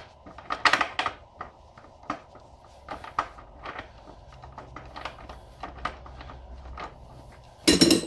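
Socket wrench working a motorcycle's rear axle nut loose: a run of irregular light metallic clicks and clinks, with a louder clunk just before the end as the nut comes free.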